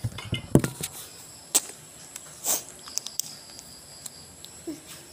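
Scattered short clicks and rustles of close handling, with one brief hiss about two and a half seconds in and faint steady high tones behind.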